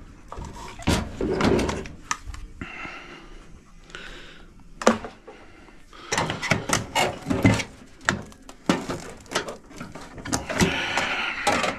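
Knocks, clicks and clatter of hands and tools on the metal parts of a microwave oven being taken apart for scrap. The knocks are sparse at first and come thick and fast in the second half, with a short scraping sound near the end.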